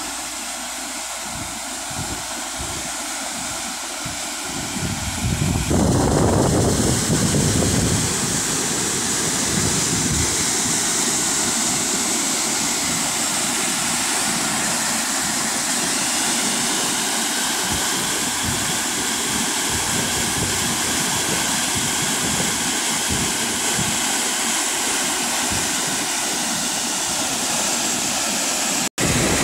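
Dredged slurry of seawater, sand and mud from a cutter suction dredger pouring as a heavy spray into a barge's flooded hold: a steady, loud rushing splash. It grows louder about six seconds in and breaks off briefly near the end.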